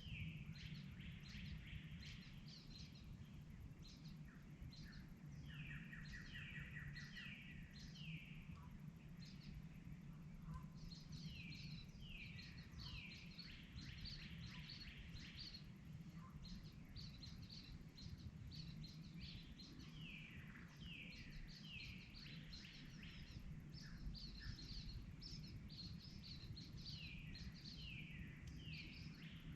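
Faint dawn chorus of several songbirds, with many short chirps. One bird repeats a phrase of three or four falling notes every six or seven seconds. A steady low hum runs underneath.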